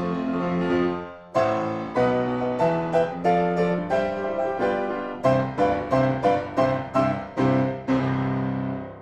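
Solo piano music: a held chord fades, then a run of struck notes and chords, ending on a chord that dies away.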